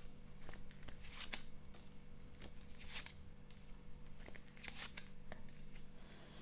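Tarot cards being handled and laid out on a table: scattered soft clicks and rustles, a few a second at most, over a faint steady hum.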